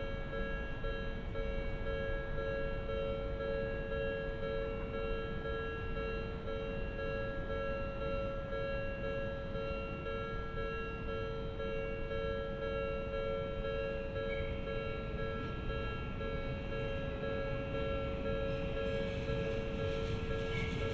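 Japanese level crossing warning bell ringing, with a few steady tones repeating without a break, the signal that a train is approaching. Near the end a hiss from the approaching train begins to rise under the bell.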